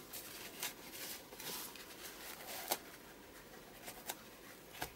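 Soft rustling and dabbing of a folded paper kitchen towel pressed onto a wet painted page to blot off excess water and paint, with a few small sharp ticks of handling.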